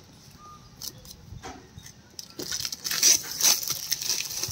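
Clear plastic shrink wrap crinkling and rustling as it is pulled off a boxed product, with a few faint clicks at first and a louder run of dense crackling from about halfway.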